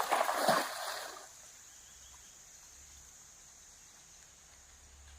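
Cast net landing on river water: one sudden splash that dies away within about a second.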